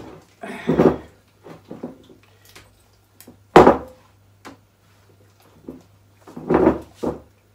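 Homemade orange glue slime being squished and kneaded by hand in a glass mixing bowl: a few separate wet squelches, the sharpest and loudest about halfway through, with small clicks between. A faint low hum runs underneath.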